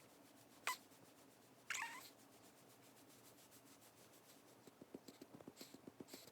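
Newborn baby giving two short, faint squeaks, the second sliding down in pitch. About five seconds in, soft rapid pats on the baby's back start, several a second, to bring up a burp after the milk feed.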